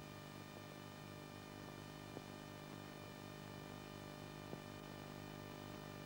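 Steady background hum and hiss of an old film soundtrack, with two faint clicks, the first about two seconds in and the second past four seconds.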